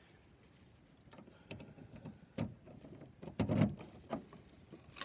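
A few separate clicks and knocks of a key working the lock of an RV's fresh-water fill compartment door and the small door being opened, the loudest knock about three and a half seconds in.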